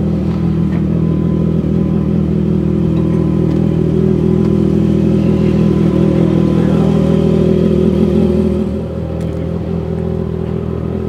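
A car engine idling steadily, a low even rumble that drops somewhat in level about eight and a half seconds in.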